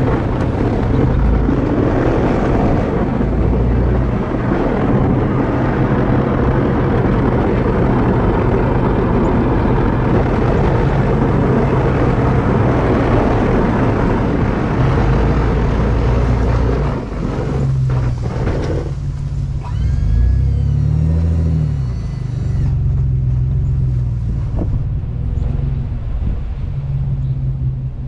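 Chevrolet Silverado 1500 pickup engine running under a dense rushing noise that eases about seventeen seconds in. A few seconds later the engine revs up and settles back down.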